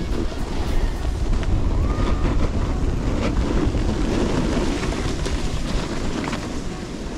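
Wind rushing and buffeting over the microphone of a camera moving down a ski slope, with a steady low rumble, over the hiss of snowboards sliding across snow.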